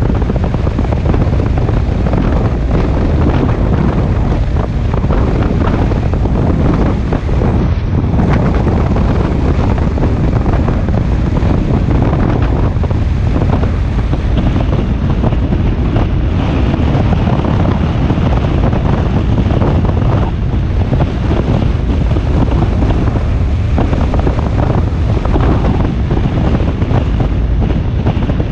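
Heavy, steady wind rush on the microphone of a camera on a BMW R1250GS Adventure motorcycle riding at road speed, with a deep rumble underneath from the bike and the road.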